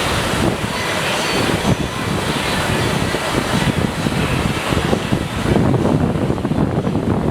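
Steady rush of water from a FlowRider surf machine's pumped sheet wave, with wind buffeting the microphone.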